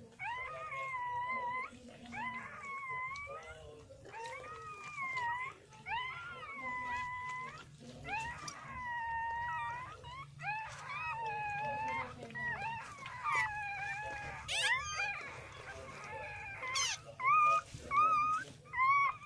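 Dog whining during whelping: long, high-pitched cries, one every couple of seconds, some wavering and some bending up or down in pitch.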